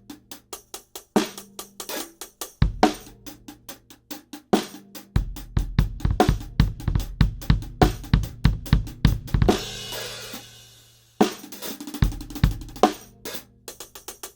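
Acoustic drum kit played as a groove on kick, snare and hi-hat, picked up through the Yamaha EAD50's overhead sensor microphone on its dry tone. A fast run of hits about five seconds in ends in a cymbal crash ringing out near ten seconds, and the beat picks up again.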